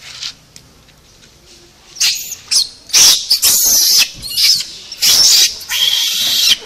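Macaque monkeys screeching: a run of loud, high-pitched screams in bursts of half a second to a second, starting about two seconds in.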